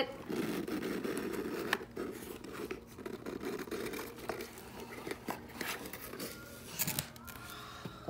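White cardboard mailer box being pried open by hand: cardboard scraping and tearing, with irregular sharp clicks and taps as a cockatoo pokes at the box with its beak.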